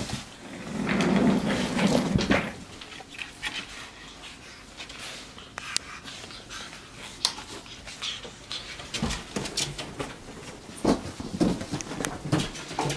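Capuchin monkeys play-wrestling and scrambling about: scattered scuffles, taps and scratches throughout, with a louder low-pitched sound in the first couple of seconds.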